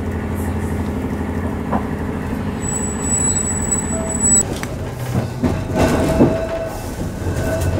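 Heritage tram running along its track, heard from inside the car: a steady low hum of motors and wheels on the rails. A thin high whine sounds for about two seconds before the middle, and knocks and rattles come in the second half.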